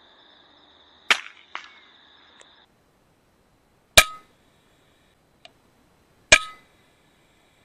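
FX Impact M3 .22 PCP air rifle firing slugs: three sharp cracks, about a second in, about four seconds in and a little after six seconds, each with a brief metallic ring. Crickets trill steadily until a cut about two and a half seconds in.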